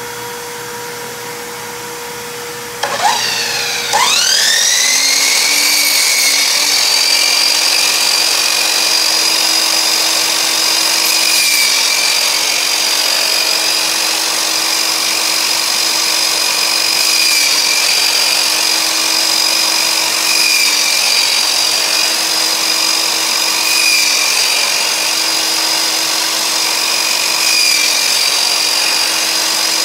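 An electric power-tool motor spins up a few seconds in with a rising whine, then runs at a steady high whine with no cut made. Before it starts, a lower steady hum runs briefly and stops.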